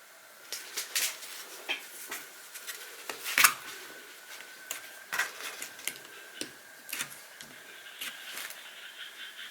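Irregular light clicks and taps of hard plastic and metal parts being handled, from the opened LED security light and its burnt interior; the sharpest knock comes about three and a half seconds in.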